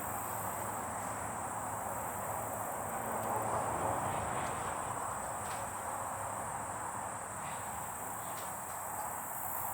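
Steady chirring of crickets, with a few faint clicks as percussion caps are pressed onto the nipples of a cap-and-ball single action revolver's cylinder at half cock.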